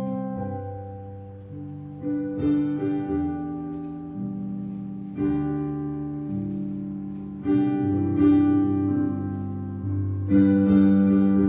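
Instrumental music: a plucked string instrument playing slow, ringing chords, a new chord struck about every two and a half seconds and left to fade.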